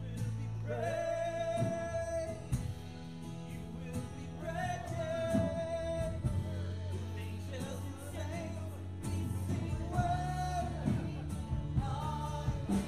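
Live church worship band playing a song, with acoustic guitar, electric guitar and drums under voices singing into microphones. The singing holds long notes several times, each about a second or more.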